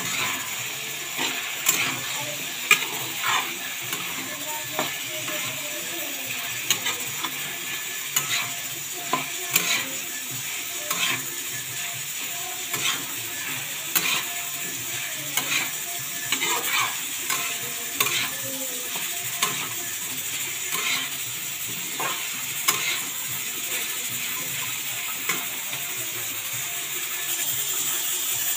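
A metal spatula scrapes and knocks irregularly against a metal kadhai while stirring potatoes, peas and cauliflower frying with spices. Under it runs a steady sizzle from the pan.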